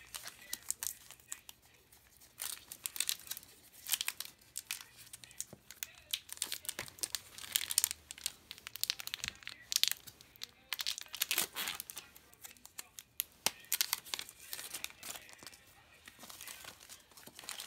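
Foil Pokémon booster pack wrapper being torn open and crinkled in the hands, a run of irregular sharp crackles.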